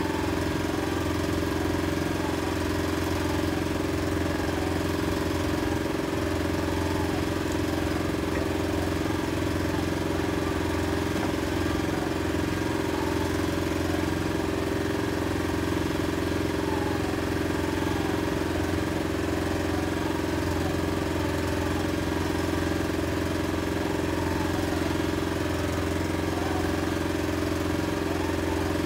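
Small boat's outboard motor running at a steady speed: a constant, unchanging engine drone.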